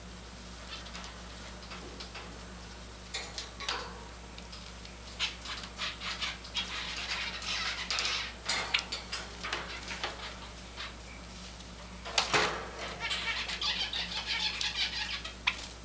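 Java sparrows chirping, in bursts of short sharp clicking notes and high chattering calls, with the loudest sharp note about twelve seconds in.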